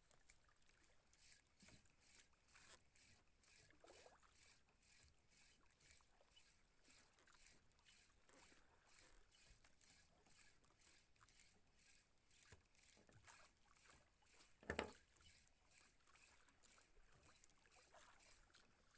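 Faint, even ticking at about three a second, typical of a small spinning reel being wound in to retrieve a lure. A single louder knock about fifteen seconds in.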